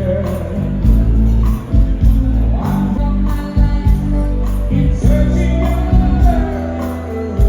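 Band music with a steady beat, heavy bass and drums, and a sung melody over it.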